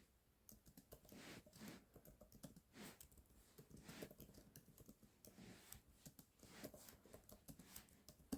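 Faint, irregular clicking of typing on a computer keyboard, a few keystrokes a second with short pauses, ending in one sharper click.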